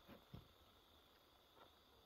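Near silence: faint steady insect chirring, with two soft knocks near the start.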